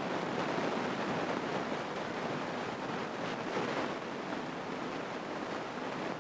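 Steady rushing cabin noise of a Grumman light single-engine airplane in level flight, with engine and airflow blended into one even noise.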